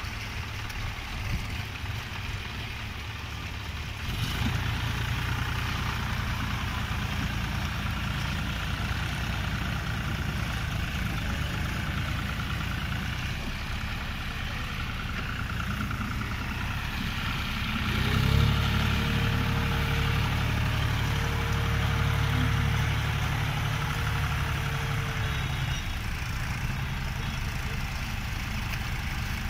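Tractor engine running steadily while driving through deep mud. It gets louder about four seconds in and again past the middle, where a steady whine joins it for several seconds.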